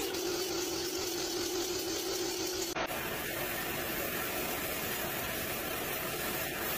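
A steady hum for the first few seconds, then, from about three seconds in, the steady hiss of an aerosol spray-paint can spraying drawer fronts.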